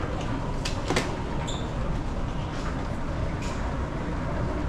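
Steady low mechanical rumble of a moving vehicle or large machinery, with a few faint ticks and a brief high beep about a second and a half in.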